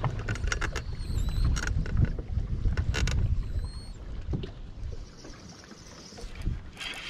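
Handling noise aboard a bass boat: low rumbling with scattered knocks and clicks, louder in the first half and quieter after about four and a half seconds.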